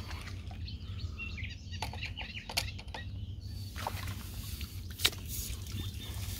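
Faint bird chirps over a steady low rumble, with a few sharp clicks about two and five seconds in.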